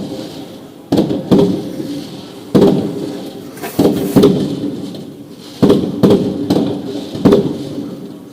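Fireworks going off: a string of about nine sharp booms, irregularly spaced and sometimes in quick pairs, each trailing off in an echoing rumble.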